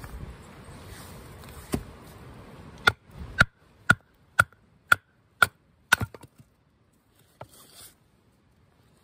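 Hatchet chopping into a small log to split firewood: a single blow, then a quick run of seven sharp knocks about two a second, each with a short ring of the blade.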